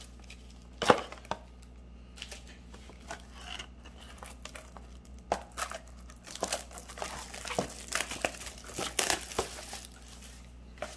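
Cellophane shrink wrap crinkling and tearing as it is peeled off a small cardboard trading-card box, in irregular crackles that grow busier past the middle, with one sharp click about a second in.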